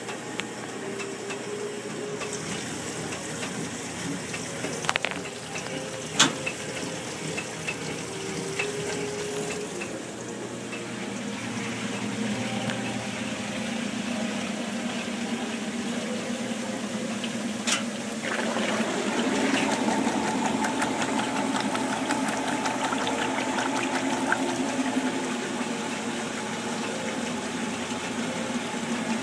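Top-loading washing machine running a wash: motor hum with the agitator churning clothes in water, broken by a few sharp clicks in the first third. The sound grows louder and busier about two-thirds of the way through.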